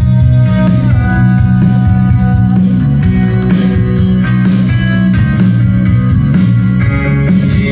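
A rock song with guitar played loudly through home tower speakers, with a heavy, steady bass line.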